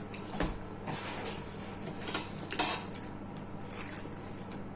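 Eating sounds: a few scattered crunches and clicks of a crispy fried spring roll being bitten and chewed, with light clinks of cutlery on dishes.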